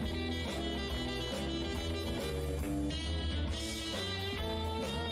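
Instrumental background music with a steady low bass line.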